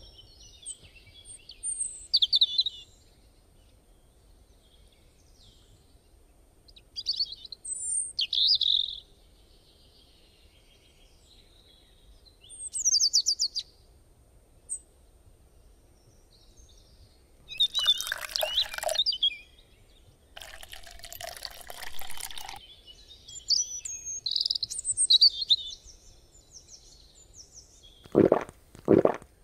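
Birds chirping and trilling now and then. About two-thirds of the way through, water is poured from a small metal bucket into a toy trough in two rushing pours of a second or two each. Two soft knocks come near the end.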